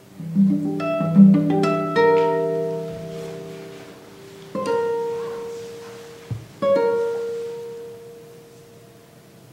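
Solo classical guitar: a quick run of plucked notes in the first two seconds, left to ring, then two single notes about two seconds apart, each ringing out and fading until it is nearly quiet near the end.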